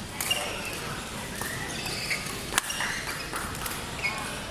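Badminton court sounds: short squeaks of shoes on the hall floor and one sharp crack of a racket striking the shuttlecock about two and a half seconds in.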